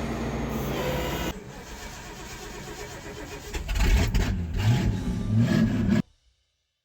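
1971 Ford Thunderbird's V8 engine running, then revving with rising pitch from about three and a half seconds in. The sound cuts off abruptly about six seconds in.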